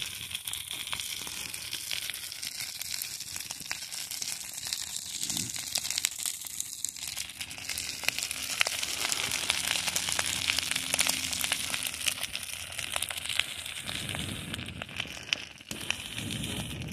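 Rice frying in a skillet over an open wood fire: a steady sizzling hiss laced with many sharp pops from the crackling firewood, loudest around the middle.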